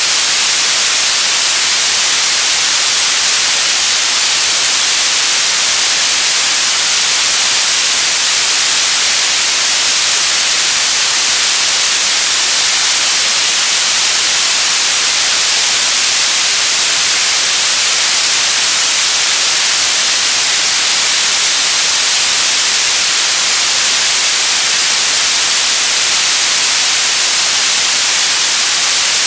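Radio static: a loud, steady hiss, brightest in the treble and thin in the bass, with no tones, voices or changes.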